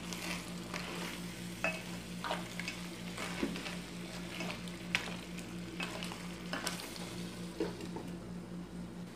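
Crab masala sizzling and bubbling in a covered pan, with scattered short pops over a steady low hum.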